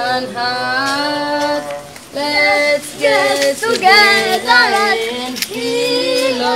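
A high voice singing a slow melody in phrases, with long held notes and short breaks between the phrases.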